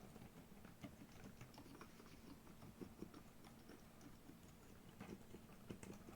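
Quiet typing on a Redox Manuform split keyboard with silent tactile switches and XDA keycaps: soft, muted keystrokes at an irregular pace of several a second.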